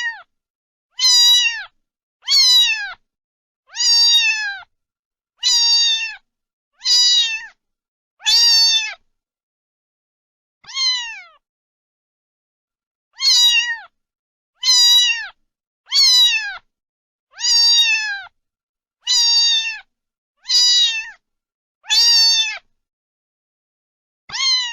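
A domestic cat meowing over and over, about one meow every second and a half, each call dropping in pitch at its end. There is a longer pause about halfway through.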